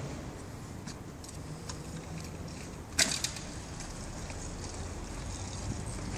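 A stepper bike drops off stone steps and lands on cobblestones with one sharp clack about three seconds in, followed by a brief rattle, then its small wheels rolling over the cobbles.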